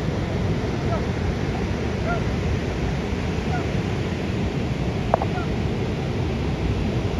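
Wind rushing on the microphone over the steady wash of beach surf, with a few faint short chirps and one brief squeak about five seconds in.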